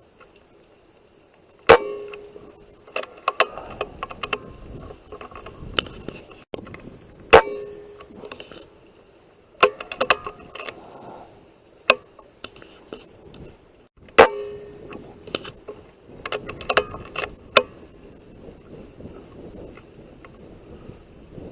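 Three rifle shots, about six seconds apart, each a sharp crack with a short ring. Each is followed by a quick run of clicks and rattles.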